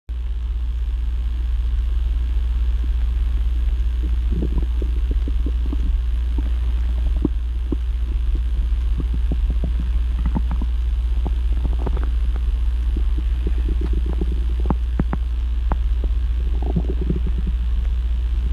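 Stomach growling: irregular runs of gurgles and small pops over a steady low hum, sparse at first and busiest in the second half.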